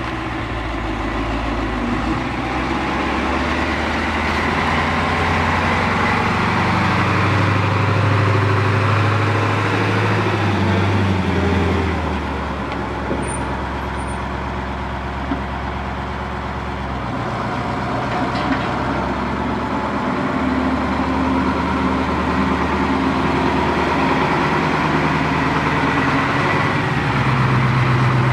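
A 1986 Ford F-700 flatbed truck's engine running as the truck drives. The engine note climbs over the first ten seconds, drops back about twelve seconds in, then climbs again and holds steady.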